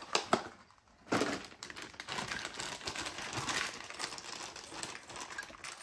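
Packaging crinkling and rustling as toilet parts are handled and unpacked, with a light click just after the start and a brief lull before it.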